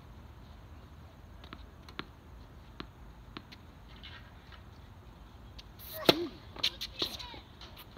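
Tennis ball being hit and bouncing on a court: a few light knocks, then a loud sharp racquet hit about six seconds in, followed by more quick hits mixed with brief sliding, falling squeaks.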